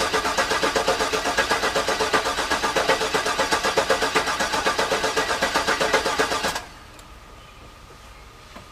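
Starter cranking a rebuilt GM LS V8 in a rhythmic, even chug without it firing, stopping abruptly about six and a half seconds in. The engine is being turned over to build oil pressure, which it does not: the builder concludes the oil pump was never primed.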